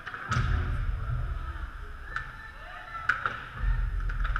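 Ice hockey play: skates scraping on the ice, with a few sharp clacks of sticks and puck, over a low rumble that comes and goes.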